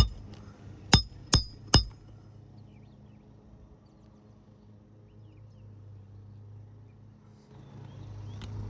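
Hammer nailing a roofing shingle down: four quick, sharp metallic strikes on a nail in under two seconds, each with a brief ring.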